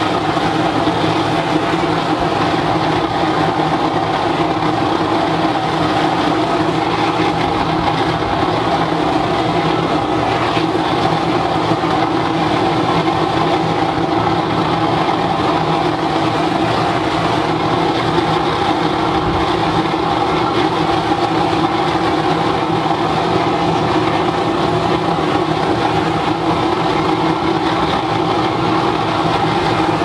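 Waste-oil burner firing into a furnace: a loud, unbroken roar of the flame, with a steady hum of fixed tones beneath it.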